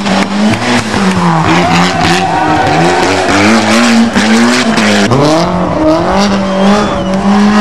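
Rally car engines revving hard, the pitch climbing and dropping several times, with sharp drops about a second in and about five seconds in as the drivers change gear or lift off.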